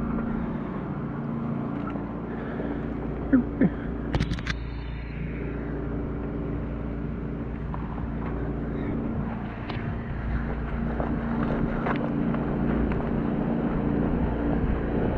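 Drain jetter's engine running steadily, an even hum. A few sharp clicks and knocks between about three and five seconds in.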